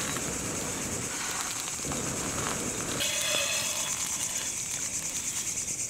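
Crickets chirring steadily at night, a high, fast-pulsing trill, over a faint low noise.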